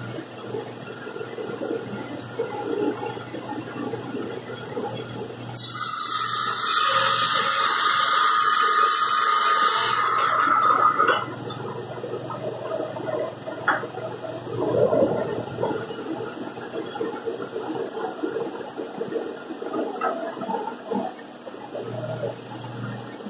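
Sliding table panel saw running with a steady motor hum, cutting through a white-faced cabinet board with a loud rushing whine for about five seconds from around six seconds in. Before and after the cut, boards knock and scrape on the saw table as they are fed and stacked.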